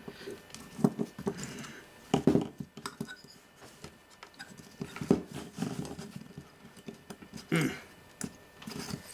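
Irregular light clicks, taps and knocks of small metal parts and hand tools being handled while the avionics receiver is taken apart, with a few louder knocks among them.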